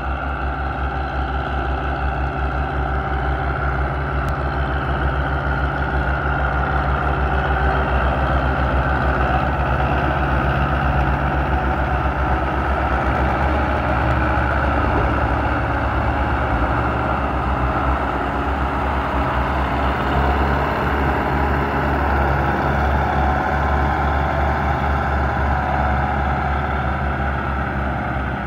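Belarus tractor diesel engine running steadily under load while pulling a fully loaded sugarcane trolley.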